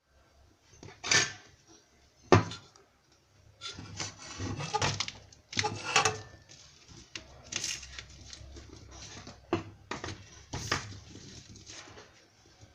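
Irregular clatter of hard objects being handled: two sharp knocks about one and two seconds in, then scraping, rubbing and clinks with more knocks later.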